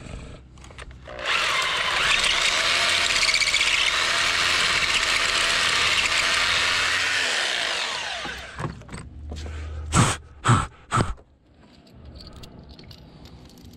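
Electric power tool running steadily for about six seconds, then its motor winding down. Three sharp knocks follow in quick succession.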